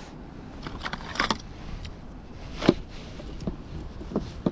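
Scattered clicks and light rattles of a clear plastic tackle box and a plastic packet of fishing hooks being handled, the sharpest click about halfway through.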